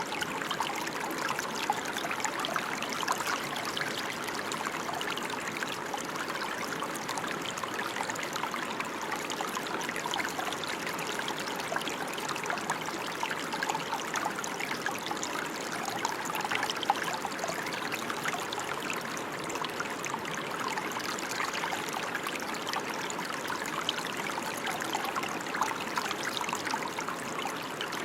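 Steady rain: a dense, even patter of drops with no letup.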